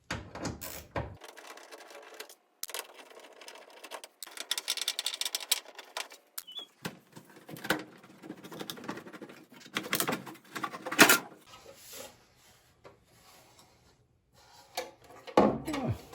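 Irregular clicking, scraping and rattling of metal dryer panels and parts being handled as the appliance is opened up, with a sharp knock about eleven seconds in.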